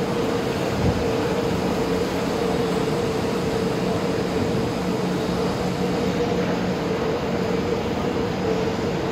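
Steady mechanical hum of an MRT station platform: a constant mid-pitched tone over a low rumble. A small knock comes about a second in.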